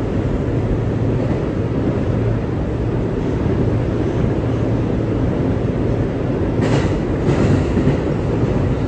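R211A subway train running along the track, heard on board: a steady rumble of wheels and running gear with a low hum. About two-thirds of the way in come two short hissing clatters, under a second apart.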